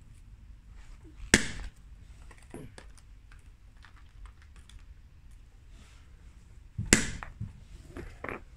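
Two hard hammer blows, about five and a half seconds apart, on a block of Smooth-On Task 12 tooling resin lying on cardboard over tarmac. The strikes are sharp and loud, with light clicks and handling rustle between them.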